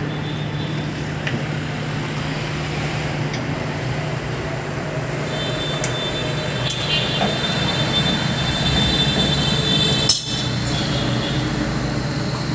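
A machine running with a steady low hum; about five seconds in a high whine joins it for several seconds, and a sharp click comes about ten seconds in.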